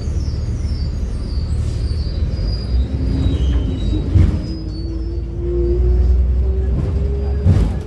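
City bus running with a heavy low rumble, with a strange whining noise coming from the bus. The whine rises slowly in pitch over a few seconds, over high squeaky tones that step downward, and there are two short knocks, one about four seconds in and one near the end.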